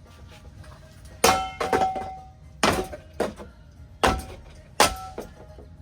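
A string of sharp hits on a ceiling fan as it is being smashed, about seven in all, several leaving a brief ringing tone.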